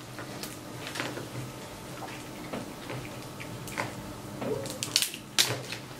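Eating sounds: chewing and mouth noises with scattered small clicks as snow crab legs are handled, and a sharper cluster of clicks about five seconds in.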